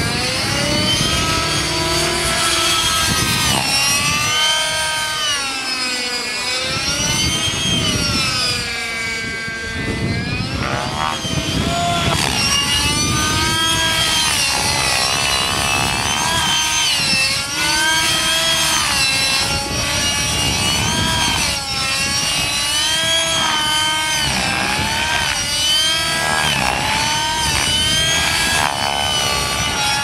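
Radio-controlled aerobatic helicopter's nitro (glow) engine and rotor running hard, the pitch swinging up and down continuously as the model manoeuvres and passes by.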